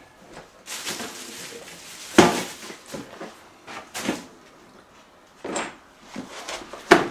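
Scattered household knocks and clatter, like cupboard doors or drawers and dishes being handled. Sharp knocks come about two seconds in, around four seconds, and near the end.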